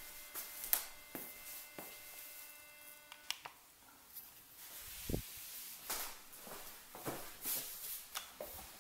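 Footsteps on a wooden floor and close knocks and rustles as the 360 camera and its microdolly are handled, with one low thump about five seconds in. A faint steady whine stops about three seconds in.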